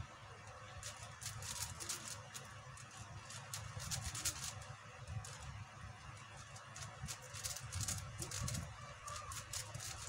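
QiYi 5x5 speedcube layers being turned fast by hand: plastic clicking and clacking in quick, irregular runs of turns.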